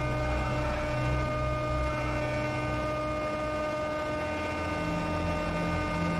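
A motor running steadily: a hum of several fixed tones over a low, uneven throb, whose pitch steps up about two-thirds of the way through.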